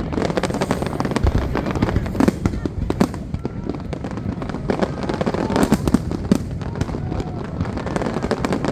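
Aerial fireworks going off in quick succession: a dense run of bangs and crackling reports with no break.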